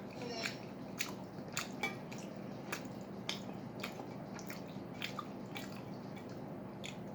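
Close-up wet eating sounds of someone chewing sujebi soup: soft, wet mouth and lip clicks at an irregular pace of about two a second.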